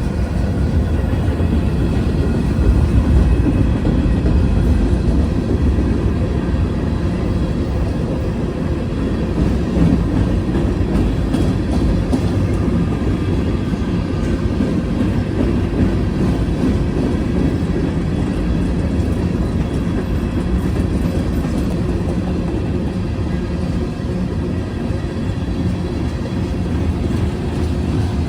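A train rolling past, with a steady, low rumble of wheels on the rails.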